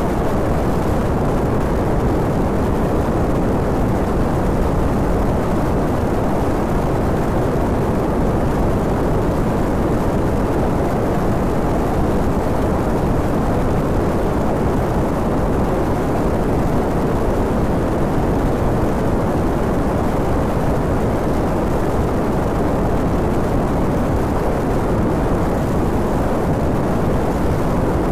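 Steady rush of wind over a handlebar-mounted phone's microphone on a Honda VTR250 V-twin motorcycle cruising at about 80 km/h, with the engine running under it.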